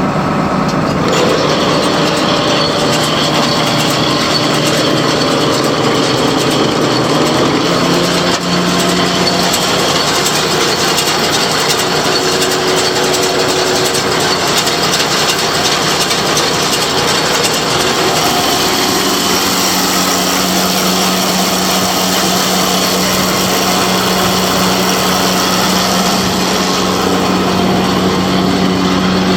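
Tractor running a John Deere 569 round baler: a steady mechanical drone that changes pitch around eight seconds in and again about nineteen seconds in.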